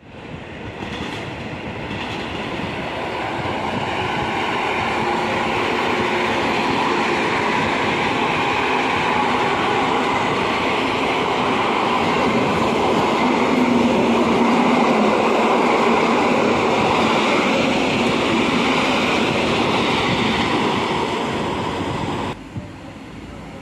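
Two coupled EN57 electric multiple units passing close by, their running noise swelling over the first few seconds, then steady and loud until it cuts off suddenly about 22 seconds in.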